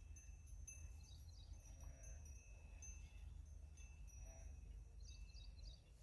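Near silence: faint open-field ambience with a low rumble and faint, high-pitched chirps and thin whistling tones that come and go.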